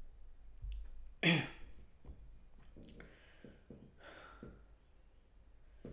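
A man coughs once, briefly and sharply, about a second in, followed by soft breathing and a faint click.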